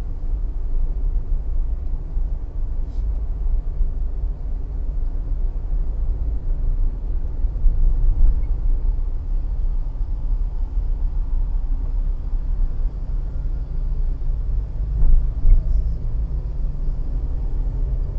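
Steady low rumble of a car's engine and tyres heard from inside the moving car's cabin, briefly swelling a little about halfway through and again near the end.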